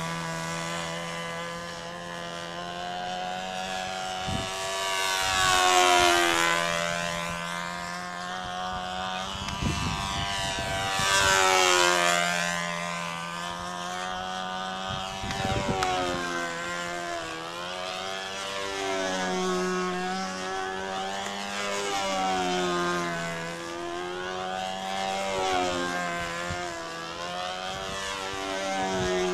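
Control-line model airplane's motor and propeller running steadily at high revs, the pitch and loudness rising and falling again and again as the plane circles the pilot.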